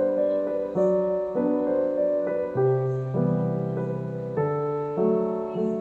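Background music: a gentle piano tune, its notes and chords changing at an even, unhurried pace.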